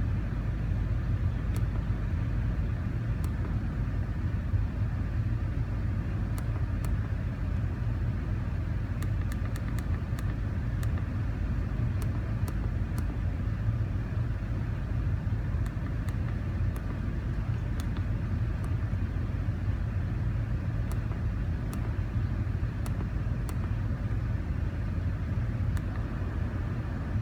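Car engine idling steadily, running with a vacuum leak that is driving its fuel trims, with a few faint light clicks.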